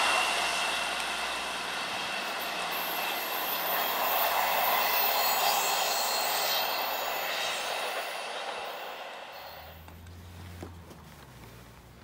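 A Class 158 diesel multiple unit running along the line, its wheel and rail noise swelling briefly, then fading away over about ten seconds. A few faint knocks follow near the end.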